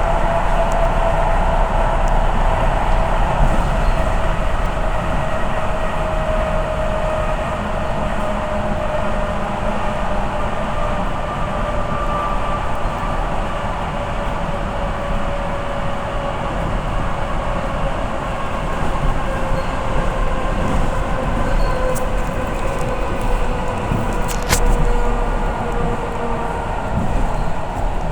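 Electric commuter train running, heard from inside the carriage: a steady rumble and rush of noise with a motor whine that slowly falls in pitch, and one sharp click near the end.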